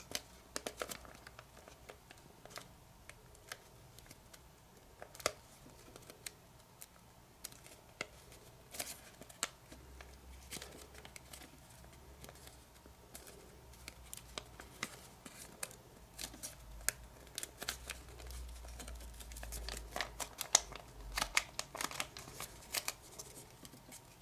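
Thin kami origami paper crinkling and crackling in short, scattered clicks as fingertips pinch and curl its raw edge into shape. A faint low rumble runs through the middle.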